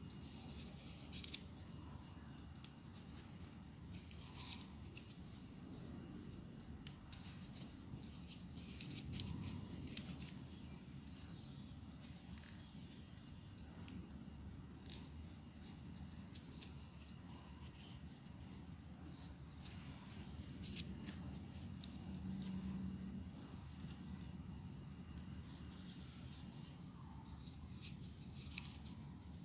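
Folded paper units of a 3D modular origami model rustling and crackling under the fingers, with scattered short clicks as the pieces are handled and pressed, over a faint steady low hum.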